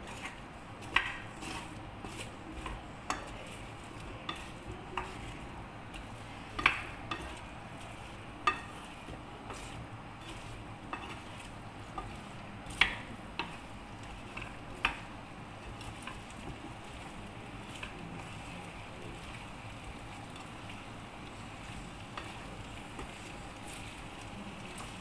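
Wooden spatula stirring potato chunks through curry paste in a non-stick frying pan, with a steady sizzle of frying underneath. Sharp knocks of the spatula against the pan and potatoes come irregularly through the first half, then the stirring goes on quieter.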